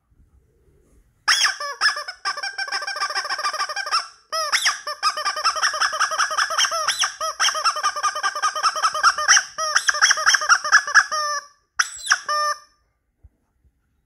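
Teal plastic toy horn sounded over and over in long runs of rapid, high-pitched squeaks, with short breaks, then two brief squeaks near the end.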